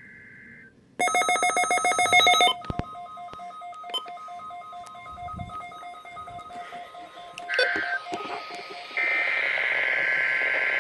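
NOAA Weather Radio weekly test of its emergency alerting: a loud, rapidly pulsing electronic alert tone for about a second and a half, then weaker steady and beeping tones over faint static. Near the end comes a loud, buzzy burst of alert data.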